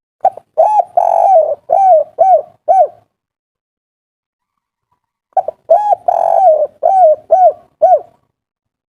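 Spotted dove (tekukur) cooing its 'kuk 3' call twice, a few seconds apart. Each phrase is a quick run of short, arched coos with one longer, drawn-out coo in the middle.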